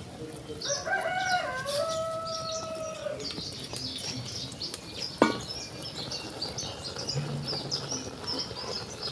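A rooster crows once, one long call of about two and a half seconds, over continual high chirping of small birds. A sharp knock sounds about five seconds in.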